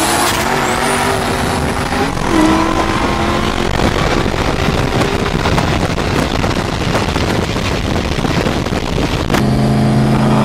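Modified V8 street-race cars accelerating hard in a roll race, heard from a moving camera car: loud engine and exhaust noise mixed with wind rush, the engine pitch changing as the cars pull, with a brief high whine rising near the start. Just before the end it cuts to a steadier, even engine drone.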